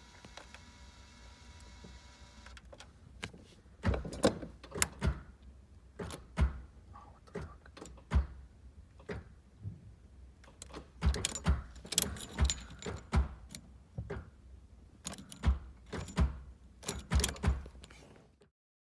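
Keys jangling, with repeated sharp clicks and knocks as the ignition key is worked in a newly fitted Ford Mustang ignition lock cylinder. No engine starts.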